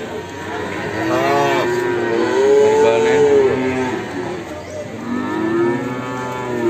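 Young beef calves, Simmental and Limousin crosses, mooing: three calls, each rising and then falling in pitch, the longest in the middle.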